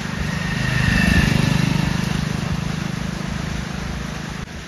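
Motorcycle engine passing close by: it grows to its loudest about a second in, then fades as the bike rides away, dropping off suddenly near the end.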